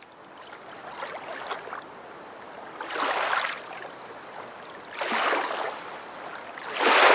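Rushing water swelling and fading in surges about every two seconds, like waves washing in.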